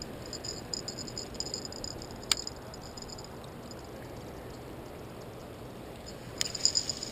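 Baitcasting reel being cranked with a fast, high clicking whir. A sharp click comes a little over two seconds in, then the reel falls silent as it is cast. Another sharp click comes about six and a half seconds in, and the whir of cranking starts again, all over a steady low background rush.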